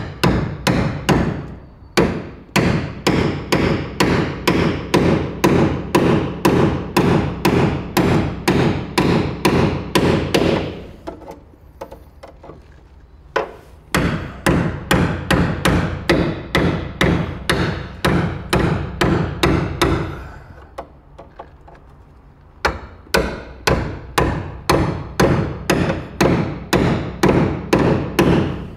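Steel hammer driving a spot weld removal chisel into the two sheet-steel skins of a rusty car sill, cutting through the spot welds. Quick, steady metal-on-metal strikes at about three a second, in three long runs with two short pauses.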